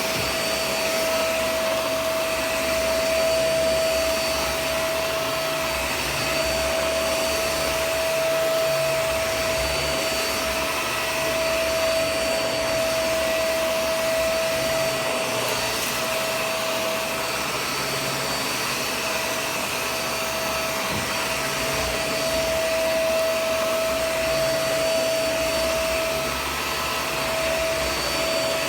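Shark Vac-or-Steam running in vacuum mode over a rug: a steady motor whine over the rush of air, unchanging throughout.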